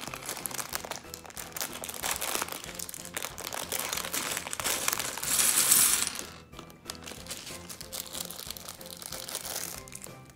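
Plastic LEGO parts bag crinkling as it is opened and shaken out, with small plastic bricks clattering onto a wooden tabletop; the crinkling is loudest about five to six seconds in, then dies down to lighter handling.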